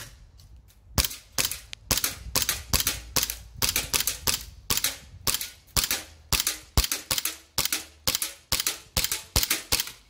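VFC Sig Sauer M17 gas blowback airsoft pistol firing a long run of rapid semi-automatic shots, about three a second, each a sharp crack from the gas blowback slide cycling.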